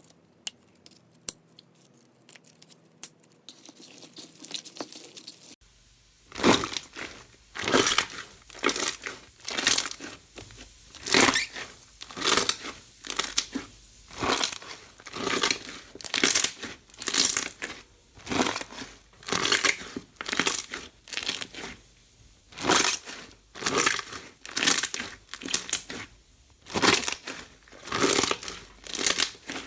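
Slime being worked by hand: a few faint clicks, then from about six seconds in a steady run of loud squeezes, roughly one a second.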